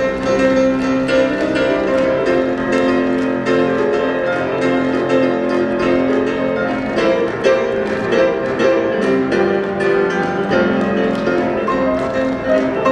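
Instrumental dance music: piano and strings over a steady beat of short, sharp strikes.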